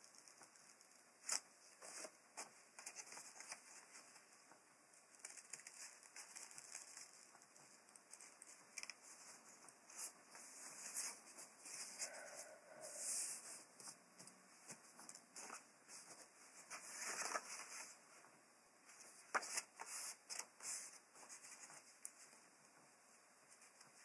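Faint, short snips of small pointed scissors cutting paper, with paper rustling as the sheet and scraps are handled.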